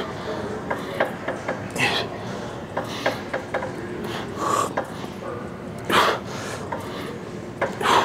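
A man's forceful breaths, one short exhale with each pulldown rep about every two seconds, with light metallic clicks from the cable machine's pulley and weight stack in between.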